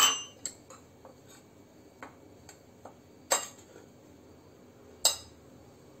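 A few sharp clinks of china and spoons against ceramic dishes: one right at the start, two louder ones past halfway, and faint ticks between them while flour and semolina are mixed by hand in a ceramic bowl.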